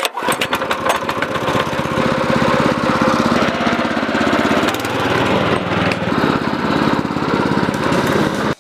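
Lawn mower engine running steadily under load while cutting tall pasture grass, with a run of sharp clicks in the first second; the sound cuts off suddenly at the end.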